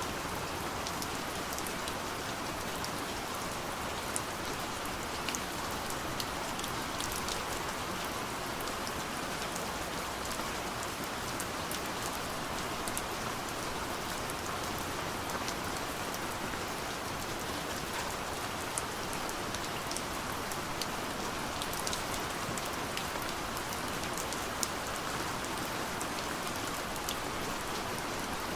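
Steady gentle rain falling on a window, an even hiss with scattered individual drop ticks.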